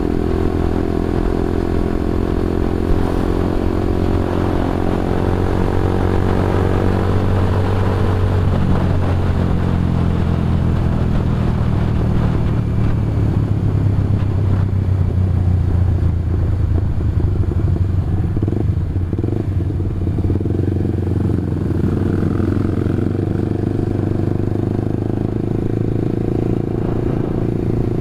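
Motorcycle engine running steadily while riding, its pitch easing down over the first several seconds before settling into an even drone.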